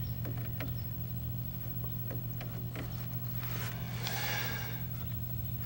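Steady low electrical hum from a running vacuum-tube television chassis, with a few small clicks and scrapes as a glass tube (a 6AW8) is worked out of its socket while the set is live. A brief soft hiss about four seconds in.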